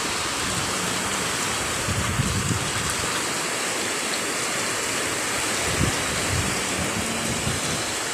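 Heavy rain pouring steadily in a windstorm, with low gusts of wind now and then.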